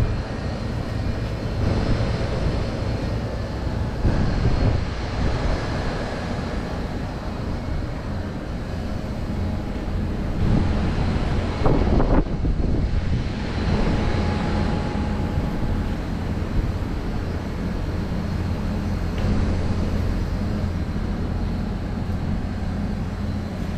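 Bank of outdoor heat pump units (Mitsubishi City Multi and Daikin) running: a steady fan whoosh over a low compressor hum. A louder whooshing swell rises and fades about halfway through.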